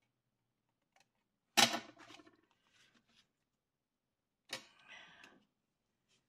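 Craft-table handling noise. A sharp knock with a brief paper rustle comes about a second and a half in, and a second, softer knock with rustling near the end, as a freshly trimmed folded card and small scissors are set down on a cutting mat.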